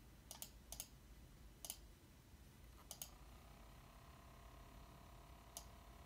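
Faint sharp clicks, several in quick pairs, as laptop fan settings are changed. About three seconds in, a steady high whine from the MSI GS65 laptop's cooling fans starts and holds.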